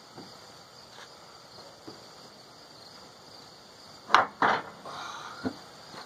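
Crickets chirring steadily. About four seconds in, two loud clanks close together, then a brief scrape and a lighter knock, as the steel sawmill carriage is handled on its track.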